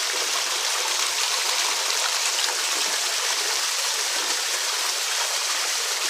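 Small waterfall pouring down a rock face and splashing into the pool at its foot: a steady, even rush of water.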